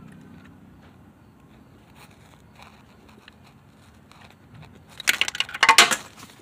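A ratchet clicking rapidly for about a second near the end, tightening the 10 mm bolt that holds the crankshaft position sensor on the bell housing. Before that there are only faint scattered ticks of handling.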